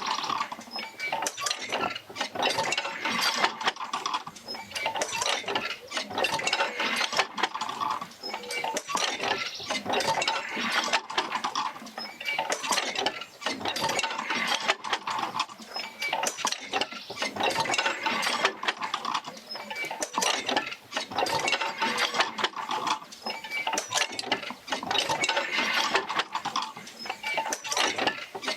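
Oil field wheel swinging back and forth as it drives jerker lines out to the pumps. It makes a creaking, clanking mechanical sound that swells and eases in a steady cycle about every two seconds.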